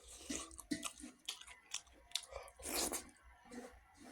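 Close-up chewing of rice and buffalo meat: wet mouth sounds with short crunches and clicks, and one louder noisy burst about three seconds in.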